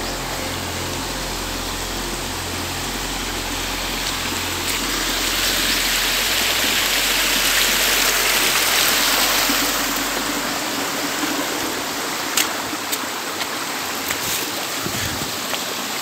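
A forest stream rushing over rocks: a steady, dense water noise that grows louder in the middle. A few sharp clicks come near the end.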